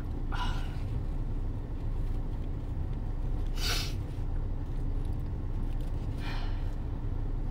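Steady low rumble of an idling car, heard from inside the cabin, with three short breathy sniffs or inhalations: one just after the start, one at about three and a half seconds, one past six seconds.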